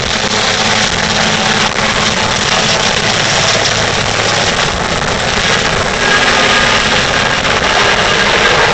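Aérospatiale Super Puma twin-turbine helicopter lifting off close by and climbing away: loud, steady turbine and rotor noise, with a faint steady whine coming in about six seconds in.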